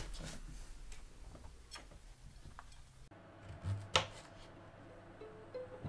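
Faint scattered clicks and handling noise in a small room. Then comes a knife cutting a potato on a plastic chopping board, with one sharp knock of the blade on the board about four seconds in. A few faint plucked music notes start near the end.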